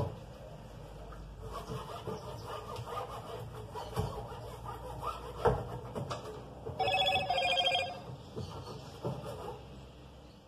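Knocks and rattles of items being moved around inside an open refrigerator, with sharp knocks at the start, about four seconds in and about five and a half seconds in. About seven seconds in comes a brief, bright pitched sound in two parts, lasting about a second.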